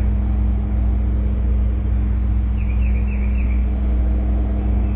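Steady low rumble with a constant low hum, unchanging throughout, with a short run of faint high chirps about two and a half seconds in.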